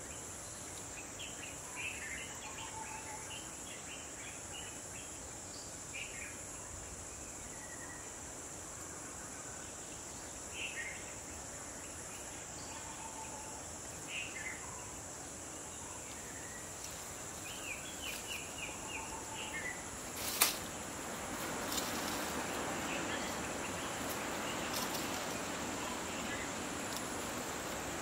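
Steady high-pitched insect chorus with short, scattered bird chirps over it. A single sharp click comes about twenty seconds in, and soon after a broader hiss rises underneath.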